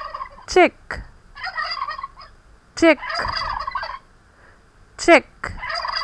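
Turkey gobbling three times, each a sharp falling note followed by about a second of rapid rattling burble.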